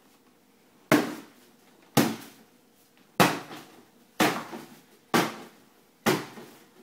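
A bat whacking a piñata six times, about once a second, each hit sharp and dying away quickly.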